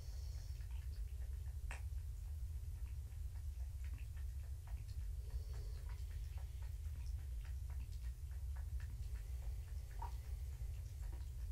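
Steady low hum with many faint, irregularly spaced small ticks and clicks over it.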